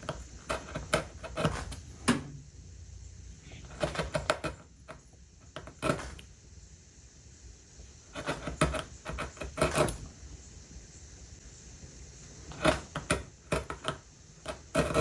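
Number 5 carving gouge cutting into the wooden chair seat along the edge line. The cuts come as short, sharp clicks and scrapes in little clusters every few seconds.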